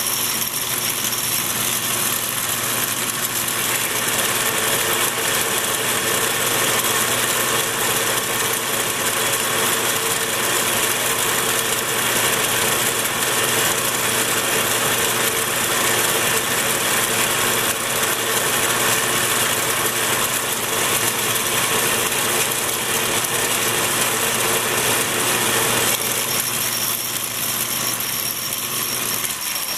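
Atlas 618 metal lathe running at steady speed, turning down a 303 stainless steel rod; a constant mechanical whine of motor and drive with several steady tones.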